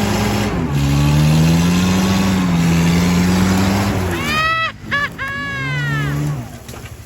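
Vehicle engine revving hard under load, its pitch stepping up and down, with a high rising-and-falling whine a little past the middle. The engine is straining to get the stuck 4x4 out of the mud.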